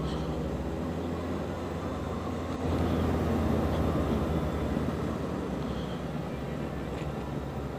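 Motorcycle engine, a Honda VFR800 V4, running steadily under way. It grows louder about three seconds in, then eases back a couple of seconds later.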